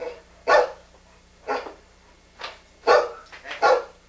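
A dog barking about seven times at uneven intervals, the loudest barks about half a second and three seconds in.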